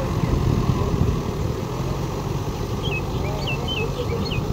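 Mahindra 585 DI tractor's diesel engine running steadily under load as it drives a rotavator through a flooded paddy field, puddling the mud. A few short high chirps come in about three seconds in.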